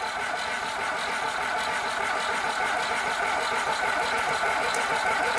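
Starter motor cranking a carbureted car engine fitted with polyurethane pistons, turning it over steadily without it catching. The even cranking shows the engine is making compression.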